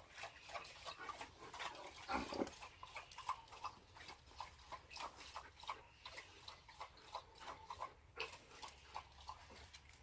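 Faint, irregular small clicks and rustles from a dog moving about, with one slightly louder sound about two seconds in.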